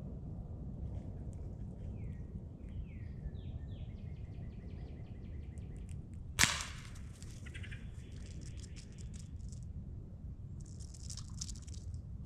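Songbirds chirping with short falling calls and a trill, and about six seconds in a single sharp crack of an air rifle shot.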